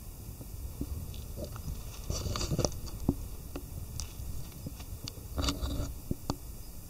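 Irregular crackling and crunching clicks with rustles, in two denser clusters about two and five and a half seconds in, over a steady low rumble.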